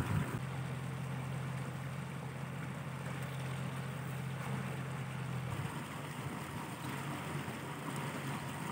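Steady rushing of water running down a narrow canal channel, with a low steady hum beneath it that fades out about five and a half seconds in.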